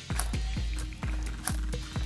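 Background music with a steady beat of deep bass kicks and crisp high percussion.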